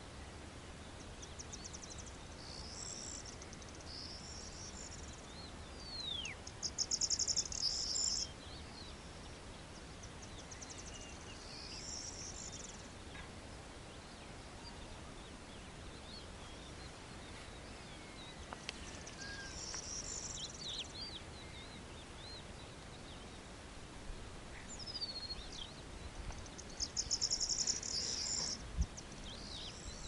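Countryside ambience: short, high, buzzy trills come every few seconds and are loudest about seven seconds in and again near the end, with thin whistled bird calls between them over a faint low rumble.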